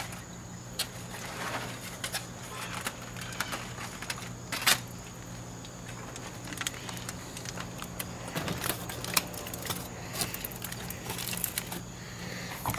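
Aluminium foil crinkling and rustling as it is peeled back from racks of smoked baby back ribs, with scattered sharp clicks and clinks of metal, the loudest about halfway through.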